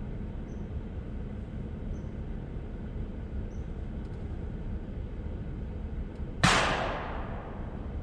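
A single shotgun shot about six and a half seconds in, sharp and then fading over about half a second, over a steady low rumble.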